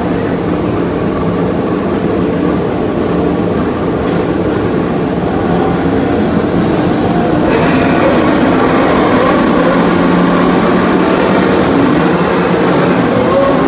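Formula One cars' 1.6-litre turbocharged V6 hybrid engines running on the starting grid at the start of the formation lap, a loud steady drone. It grows louder about halfway through, and engine notes rise in pitch near the end as cars pull away.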